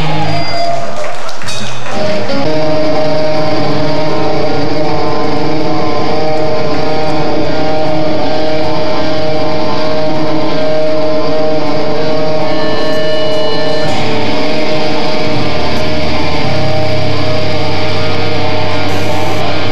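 Live rock band playing loud electric guitar and bass. There is a short break about two seconds in, then long held chords ring over shifting bass notes.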